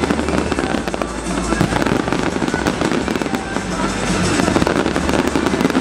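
Fireworks display going off without pause: dense, rapid crackling and popping of many shells at once over a steady low rumble.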